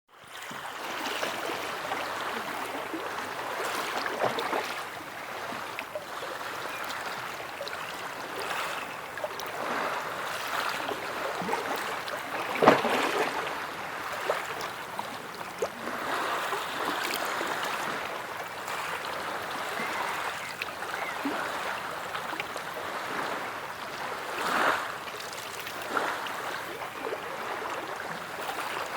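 Sea water washing and lapping in a steady rush, broken by many small splashes, with a louder splash about 12 seconds in and another near 25 seconds.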